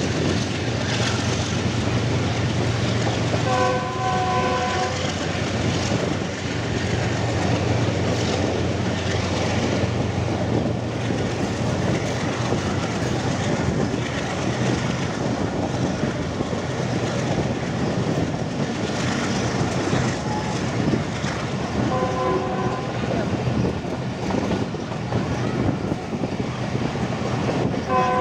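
Steady running rumble of a diesel-hauled passenger train at speed. The GE GEU40 diesel-electric locomotive's multi-note horn blows a short chord-like blast about four seconds in, another about 22 seconds in, and starts again at the very end.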